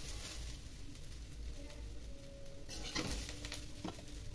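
Steel spatula scraping and scooping cooked upma out of a hot kadhai into a serving bowl over a faint steady sizzle. Short scrapes come about three seconds in and again just before four seconds.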